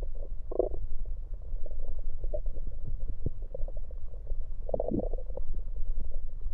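Stomach gurgling heard through an electronic stethoscope on the belly, the gas and fluid of gulped-down cola moving inside. Short bubbling gurgles come about half a second in and again near five seconds, over a steady low hum and faint ticking.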